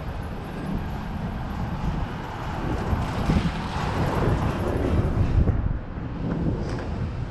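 Outdoor street background noise: a low rumble that swells about halfway through, then eases.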